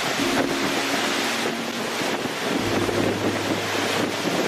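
Hurricane-force wind and driving rain, with wind buffeting the microphone. Underneath is background music of long held notes that change pitch every couple of seconds.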